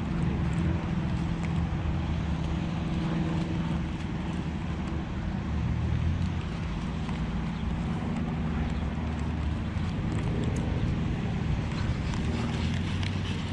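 Steady low mechanical hum and rumble, with an even outdoor hiss over it.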